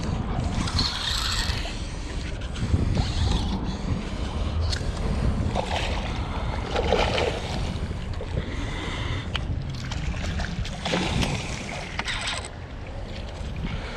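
Wind buffeting the microphone and water slapping against a kayak hull, with splashing from a hooked redfish thrashing at the surface.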